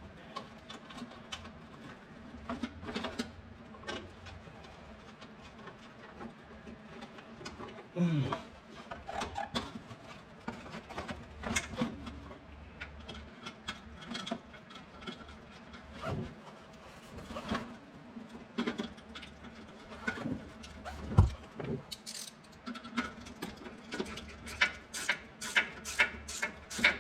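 Scattered clicks, taps and knocks of hands fitting a small underbody cover back in place beneath a pickup truck, with a quick run of clicks near the end.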